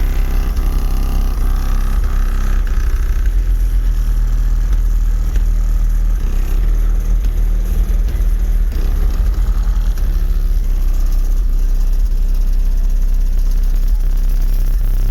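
Car audio subwoofers playing bass-heavy music at very high volume. Deep bass runs throughout, with the bass notes changing every second or two.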